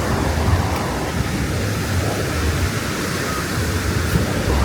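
Steady rushing of ocean surf, with a low rumble underneath.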